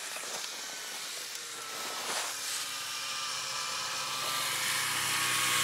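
Snowmobile engine approaching along the track, its drone growing steadily louder, with a few light knocks of handled gear near the start and about two seconds in.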